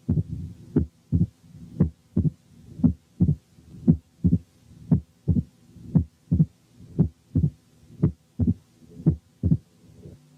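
Heart sounds heard through a stethoscope's bell at the cardiac apex: a quick, even run of sharp beats, about three a second. These are the first heart sound, the second heart sound and an opening snap. Between them a low rumbling mid-diastolic murmur fades away as the bell is pressed onto the skin. The pattern is typical of mitral stenosis.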